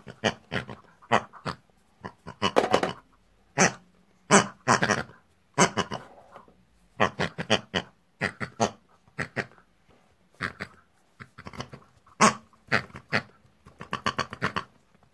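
A quick string of short pig-style grunts and squeals, coming in bursts with short gaps, voicing the toy pig characters.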